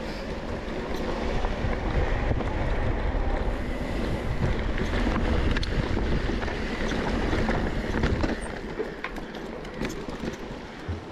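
Wind buffeting the GoPro's microphone while a mountain bike rolls along a dirt trail, with a steady low rumble and scattered clicks and rattles.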